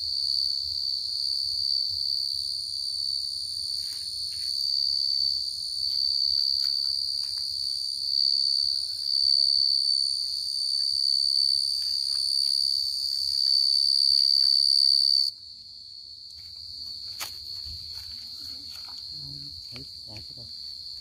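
A field cricket singing close by: a loud, steady, high-pitched trill that cuts off suddenly about fifteen seconds in, leaving fainter cricket song at the same pitch. There are light rustles and clicks among the leaf litter.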